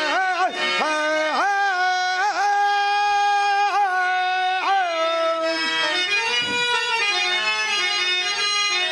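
A man sings a Telugu padyam in long, drawn-out notes with wavering ornamental turns, into a microphone. About halfway through the voice gives way to a harmonium holding and moving through the melody.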